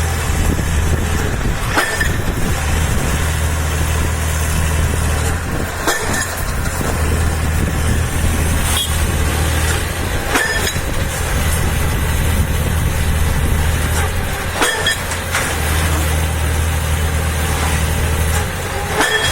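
A heavy engine running steadily, with a sharp knock every few seconds.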